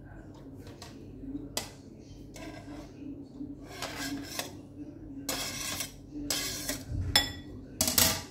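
A kitchen knife cutting and scraping on a plastic cutting board as diced tomato is scraped off into a glass bowl: separate taps and short scrapes, then a sharp ringing clink about seven seconds in and a few clicks near the end.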